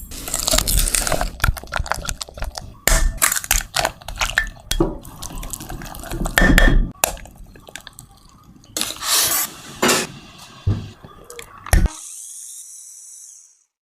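Kitchen sounds of food preparation: a utensil knocking and clinking irregularly against a bowl, with wet, liquid stirring or pouring sounds between. A short high hiss comes near the end.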